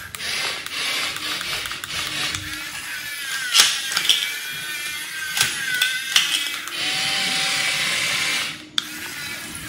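Remote-control toy excavators running: the whir of their small electric motors and gears under tinny electronic music, with a few sharp plastic clicks. A steadier whirring stretch late on stops suddenly.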